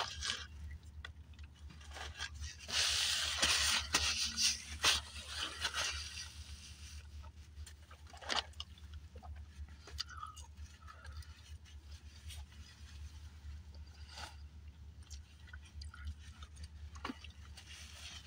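Fast-food paper wrapper rustling for a few seconds near the start, then chewing and scattered small clicks and handling noises over a steady low hum.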